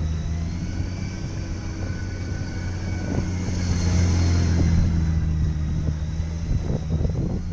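Honda Gold Wing's flat-six engine running at low speed as the touring bike circles slowly. It grows louder as it passes close by about four seconds in, then fades as it moves away.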